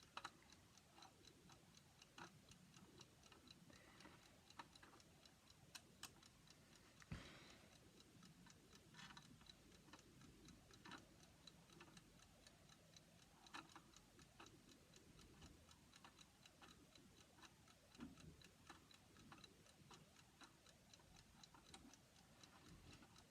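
Faint, steady ticking of an alarm clock's movement, with a few scattered louder clicks of small parts being handled and screwed.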